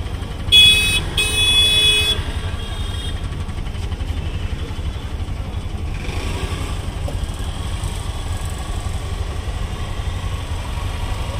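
A vehicle horn honks twice in quick succession about half a second in: a short blast, then a longer one of about a second. Under it runs a steady low rumble of road traffic.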